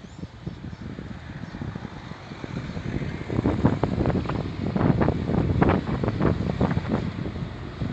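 Wind buffeting the microphone in uneven gusts, heavier from about three seconds in, over the low drone of a distant sugar cane harvester and tractor working the field.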